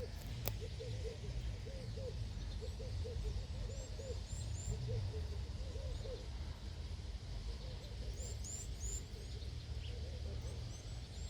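A large flock of birds calling: many short, low hooting calls in irregular clusters, with a few high chirps now and then, over a steady low rumble. A single sharp click comes about half a second in.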